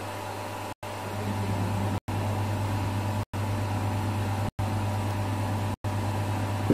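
Steady low hum with hiss, broken by short silent gaps about every second and a quarter.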